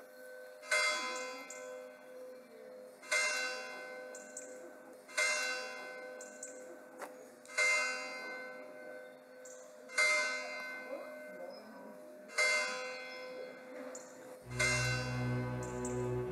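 A large bell tolling slowly, seven single strikes about two and a half seconds apart, each ringing on and fading. Low music comes in under it near the end.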